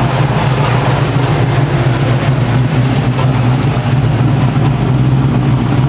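Pickup truck engine running steadily and loud, a low drone under a steady hiss.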